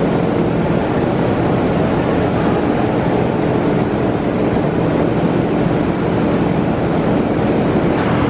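Large ventilation fans running, a loud steady rush of air with a constant low hum underneath.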